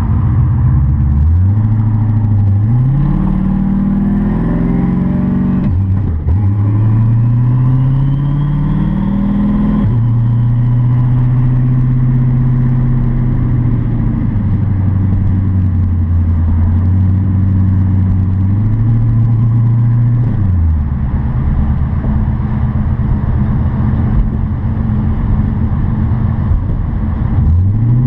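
Turbocharged GM LTx V8 being revved in the stationary car: it climbs in steps over the first few seconds, holds at a steady raised speed for about ten seconds, falls back toward idle about twenty seconds in, and revs again near the end. A faint high-pitched tone rises and falls with the revs early on, which fits the owner's complaint of a squeak from the driver's side that follows RPM under throttle and is absent at idle.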